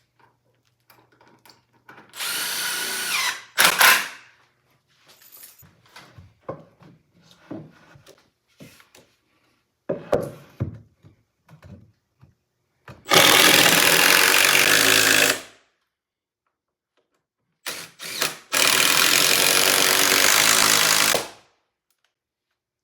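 Power drill running hard in two bursts of about two and a half seconds each, with a shorter burst a couple of seconds in. Light knocks of wood and tools fall between the bursts.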